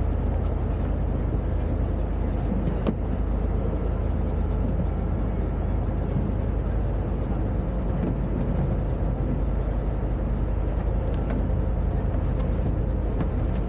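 Tour boat's engine running with a steady low drone, heard on board.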